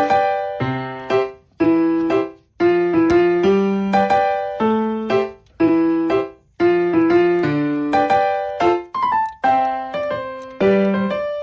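Background piano music: short phrases of plucked-sounding keyboard notes, each phrase starting sharply and fading before the next.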